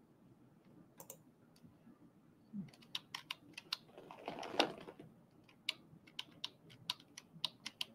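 Faint, scattered clicking of a computer keyboard and mouse, a few clicks a second from about two and a half seconds in, with a brief louder rustle about halfway through.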